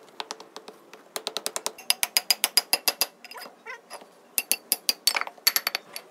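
Hand hammer striking a freshly sand-cast iron brake disc in quick runs of sharp, ringing metallic blows, several a second, knocking the moulding sand and scale off the casting.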